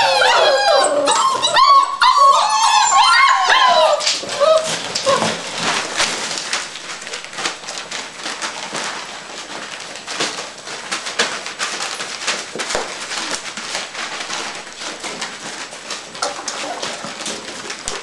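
A litter of six-week-old Labrador Retriever puppies whining and yelping together in a busy chorus for about the first four seconds. Then the calls stop and a quieter, dense run of small clicks and scrabbling follows as the puppies crowd round a metal food bowl and eat.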